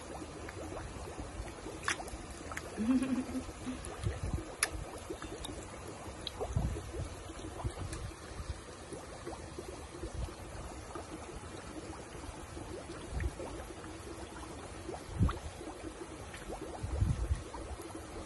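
Water trickling steadily in a small fish tub, with a faint steady hum, a few faint sharp ticks and occasional low thumps.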